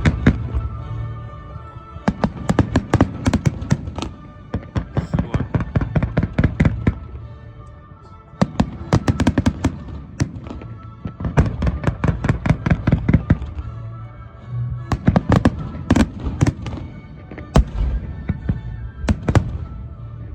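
Fireworks going off in rapid volleys of bangs and crackles over music, in three waves of a few seconds each.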